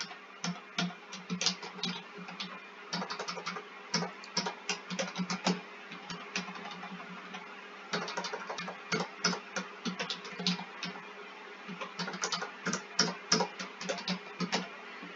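Typing on a computer keyboard: quick runs of key clicks in about four bursts, with short pauses between them.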